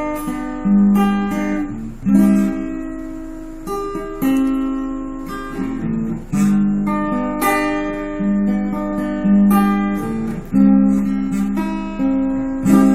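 Acoustic guitar strumming chords, a new chord struck about once a second and left ringing: an instrumental introduction with no singing yet.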